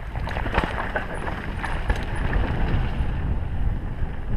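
Wind rushing over a helmet-mounted camera's microphone while a Sunn Charger S1 mountain bike's tyres roll fast over a dirt trail, with scattered knocks and rattles from the bike over bumps.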